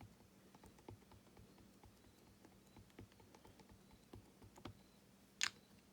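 Faint, repeated light taps of a rubber stamp being dabbed onto an ink pad to ink it, with one sharper click near the end.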